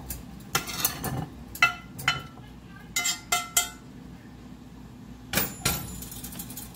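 Slotted metal spatula scraping and knocking cooked chicken out of a cast iron skillet into a glass bowl: a series of clinks and knocks, some leaving a short ringing tone, with two sharp knocks a little past five seconds.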